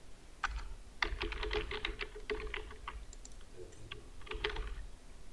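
Typing on a computer keyboard: a quick run of keystrokes, then a few scattered keystrokes near the end.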